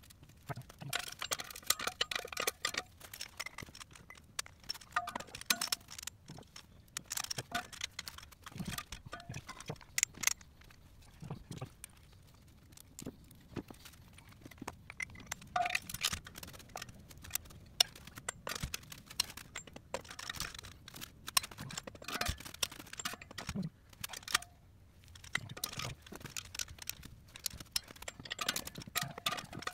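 Irregular metallic clinks and clicks of steel lug nuts and a socket wrench on the wheel studs of a bus's rear dual wheel, as the nuts are threaded on and snugged down.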